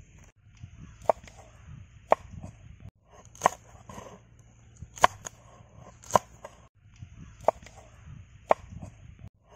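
Kitchen knife chopping green chillies on a wooden board: sharp knocks of the blade striking the wood, about one a second.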